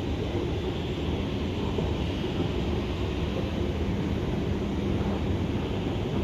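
Train engine running steadily: an even low drone with a faint hum, with no distinct knocks or horn.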